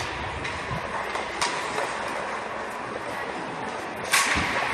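Ice hockey game play: sharp cracks of stick and puck, one about a second and a half in and a louder one near the end, over the steady noise of the rink.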